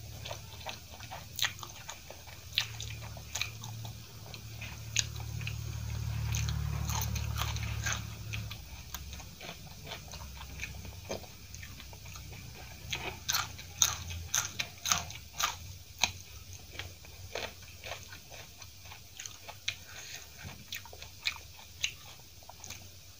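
Close-mic eating sounds: wet chewing of soft Maggi masala instant noodles with sharp mouth clicks throughout, and a run of louder crunches about 13 to 16 seconds in from biting into a raw green chilli. A low hum runs for several seconds in the first third.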